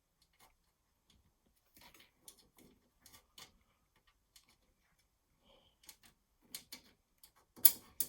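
Small screws and an SSD clicking and tapping against a steel PC case as the screws are put through the mounting holes: scattered light clicks, with a louder clack near the end.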